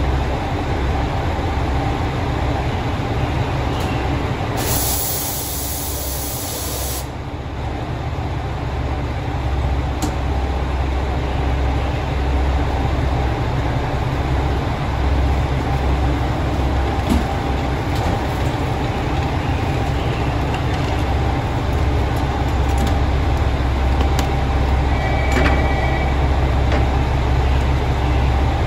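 Diesel railcars of a JR Shikoku limited express standing at the platform with their engines idling, a steady low rumble. About five seconds in, a two-second hiss of compressed air is released.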